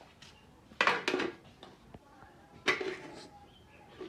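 Aluminium cooking pot and lid clanking as they are handled: two clanks about a second in, and another near three seconds.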